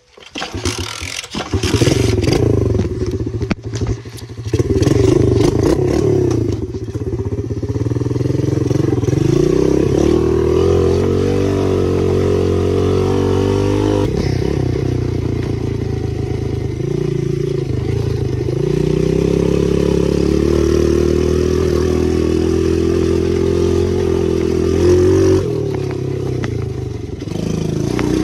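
Dirt bike engine running under a rider, its revs rising and falling as the throttle is worked. It comes in loud within the first two seconds, with some clatter early on.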